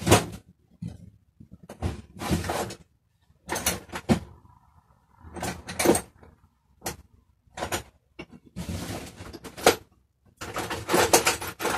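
Socket wrench with an extension bar working a BMX front-wheel axle nut: short bursts of metal tool noise, scraping and rattling, with pauses between.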